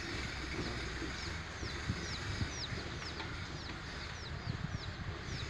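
Week-old chicks peeping steadily, a string of short high notes that fall in pitch, about two or three a second, with hens clucking low now and then.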